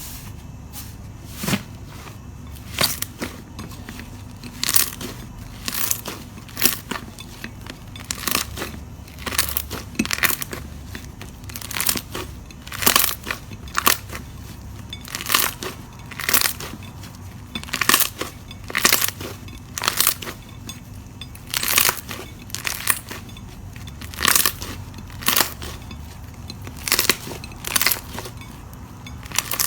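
Crunchy slime being pressed and squeezed by hand: a run of crisp, crackling crunches, about one a second at an uneven pace.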